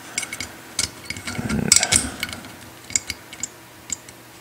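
A steel pick chipping and scraping ceramic insulating beads off the terminal ends of an espresso machine's heating element: a run of small, irregular clicks and scrapes of metal on ceramic and metal.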